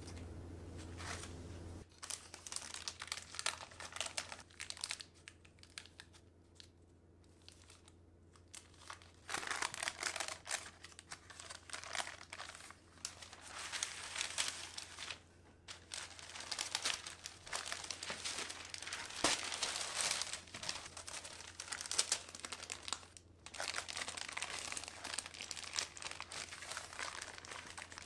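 Baking paper crinkling and rustling in irregular bursts as it is handled, laid over a baked sponge sheet and peeled off the sponge's underside.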